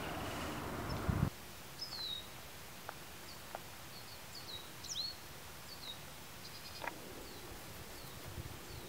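A steady rushing background noise cuts off about a second in. After it, birds chirp against a quiet background: short, high calls that slide downward in pitch, repeated every second or so.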